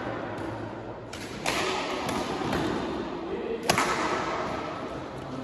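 Badminton rackets striking the shuttlecock in a doubles rally, a few sharp hits echoing in a sports hall, the loudest a little past halfway.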